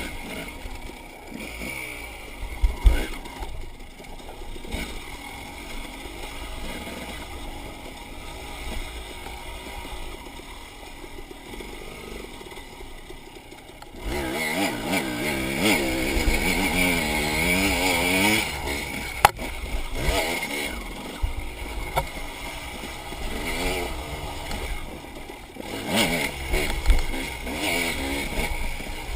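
Enduro motorcycle engine revving up and down as the bike is ridden. About fourteen seconds in it gets louder, its pitch climbing and dropping quickly for several seconds, and a single sharp knock sounds shortly after.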